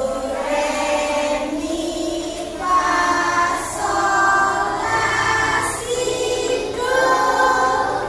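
A group of voices singing, children's and a woman's together, in long held notes.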